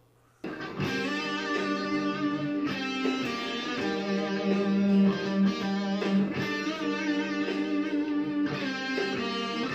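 Electric guitar playing along to a recorded backing track. It cuts in suddenly about half a second in.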